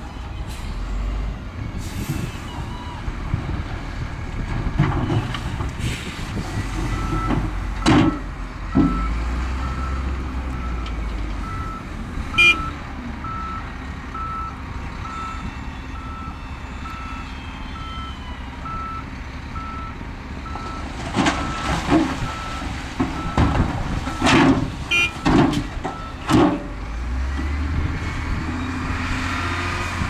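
A heavy construction machine's reversing alarm beeping about once a second over diesel engines running, with scattered clanks and knocks, a cluster of them near the end.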